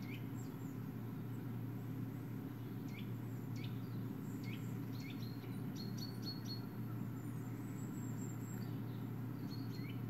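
Small woodland birds chirping on a nature video played through computer speakers: scattered short rising chirps, with a quicker run of high notes a little past the middle, over a steady low hum.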